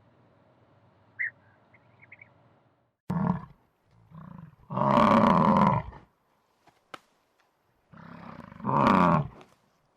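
A large animal calling loudly: a short call about three seconds in, then a long call of about a second, then another near the end. Before that there are only faint high chirps over a low hum, which cut off abruptly.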